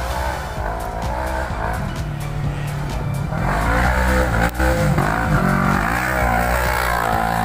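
Engine of an off-road side-by-side buggy revving up and down as it drives through a muddy track, getting louder about three and a half seconds in as it comes close.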